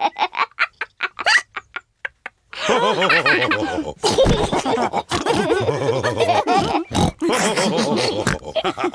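Cartoon pig characters laughing with pig snorts: quick bursts at first, then several voices laughing and snorting together from about three seconds in.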